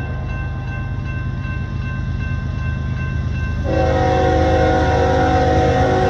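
Union Pacific freight locomotive's air horn sounding a chord, silent at first and then blowing again about three and a half seconds in and held, over the steady low rumble of the approaching diesel train. A grade-crossing bell rings steadily throughout.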